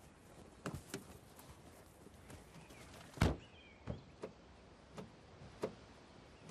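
A few footsteps on gravel, then a Toyota Yaris car door shutting with a thud about three seconds in, followed by several softer knocks and thuds.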